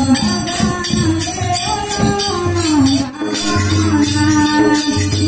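Devotional kirtan music: a hand drum and jingling percussion keep a steady beat under a sung melody.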